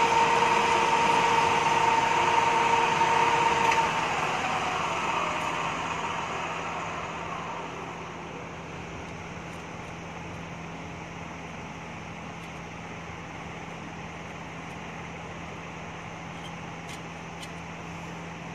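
Centre lathe running with a steady whine as it finishes turning a step on a bar down to 12 mm diameter. The whine stops suddenly about four seconds in and the machine runs down over the next few seconds, leaving a steady low hum.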